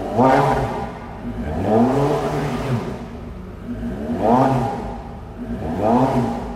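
Porsche 918 Spyder's 4.6-litre V8 revved at a standstill through its top-exit exhausts: four blips, each rising and falling back to idle, the second held longer than the others. It drops back to a steady idle near the end.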